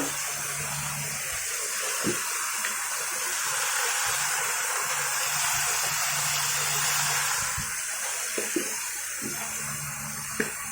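A stir-fry of pork, pickled vegetables and bean curd sizzling in a wok after a little water and seasoning have gone in: a steady hiss that swells in the middle, over a steady low hum, with a few light spatula knocks.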